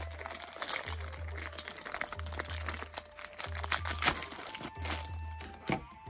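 Thin clear plastic bag crinkling and crackling as hands open it and pull the parts out, with a few sharper crackles about four seconds in and near the end. Background music with a repeating bass beat plays underneath.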